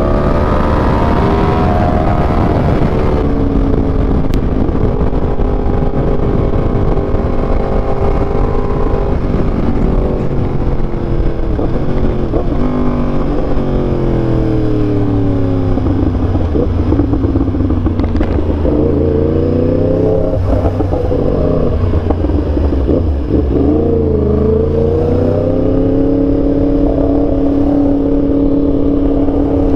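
2023 Yamaha R1's crossplane inline-four engine on the move: its note falls over several seconds as the bike slows, climbs again, dips briefly, then holds steady. Wind rushes over the microphone underneath.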